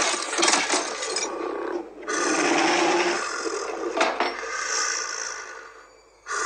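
Film sound effects of the Predator at a sink: rasping, scraping and clicking as it works its wrist medical kit, mixed with low creature growls, and a brief hiss a little past the middle. The sound fades away near the end.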